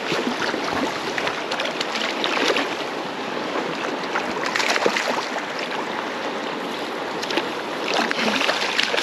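Fast river water rushing steadily, with occasional small splashes.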